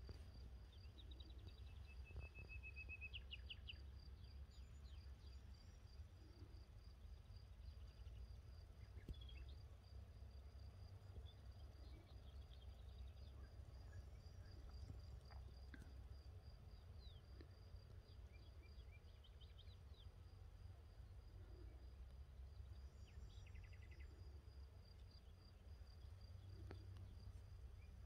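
Faint countryside ambience: a continuous high insect trill, with scattered songbird chirps and short trills over a low steady rumble.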